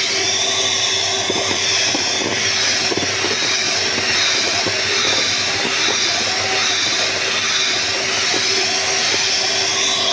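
Electric hand mixer running steadily, its twin beaters whipping cream in a stainless steel bowl, a steady motor hum with a wavering high whine.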